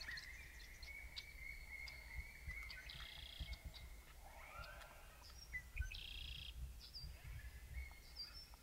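Faint outdoor ambience of birds calling: a long thin whistled note, two short buzzy calls and brief high chirps, over a steady low rumble.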